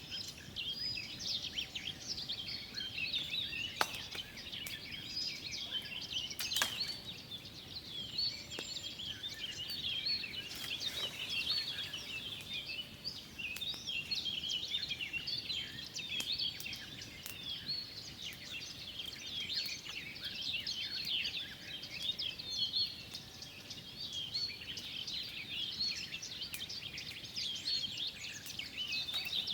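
Many birds singing and chirping at once, a dense continuous chorus of short, high calls, with a couple of sharp clicks a few seconds in.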